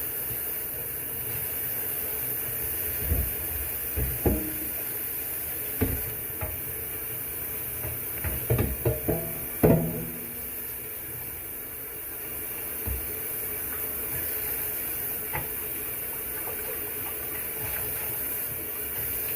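Electric kettle heating water with a steady hiss, while several knocks and clunks of objects being handled sound over it, the loudest about ten seconds in.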